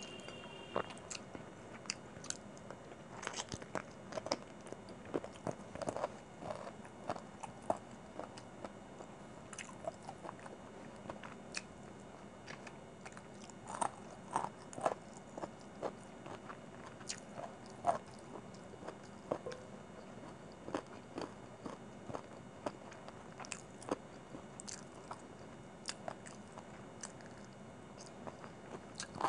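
Close-miked mouth sounds of chewing and biting chicken pulled off a drumstick, with many short, irregular crunches and clicks.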